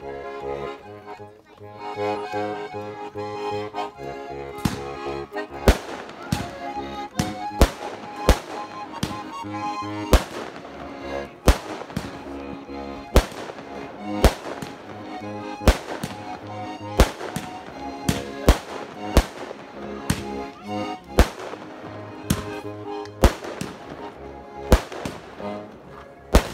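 A consumer fireworks display firing a fast series of loud bangs, about one and a half a second, starting about four seconds in. Music with a steady beat plays underneath throughout.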